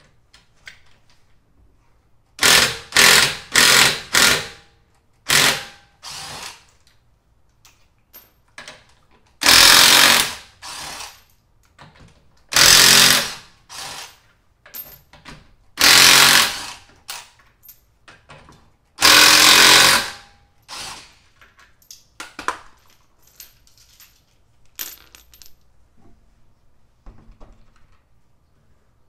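Cordless impact wrench with a 19 mm socket hammering the lug nuts off a Porsche Cayman's front wheel. It comes in loud bursts: several short ones a couple of seconds in, then four longer bursts of about a second each, with small clicks and knocks in between.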